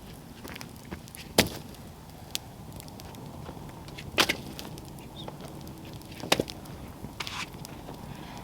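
Hatchet chopping firewood: three sharp blows a couple of seconds apart, with a few lighter knocks between them.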